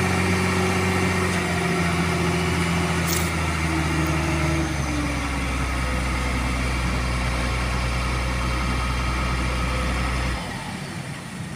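Concrete mixer truck's diesel engine running at raised revs while the drum turns. The pitch steps down about five seconds in, then the deep hum drops away sharply near the end as the engine is throttled back.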